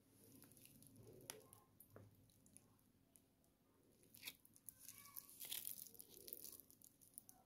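Faint crinkling and rustling of a glossy plastic pouch being handled and turned over, with a few soft clicks and a louder rustle about five and a half seconds in.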